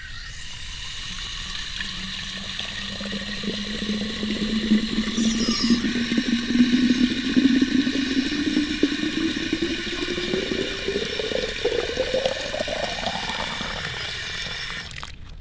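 A stream of water from a garden hose pours into a buried terracotta olla (a Growoya clay watering pot). The gurgle rises steadily in pitch as the pot fills, climbing faster toward the end, and the flow cuts off just before the end.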